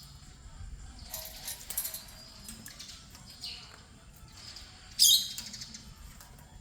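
Grey parrot flapping and shaking its wings during water play, in short rustling bursts, the loudest one about five seconds in.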